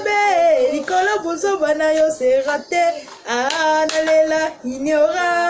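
A woman singing a melody with long held notes that slide between pitches, broken by short pauses.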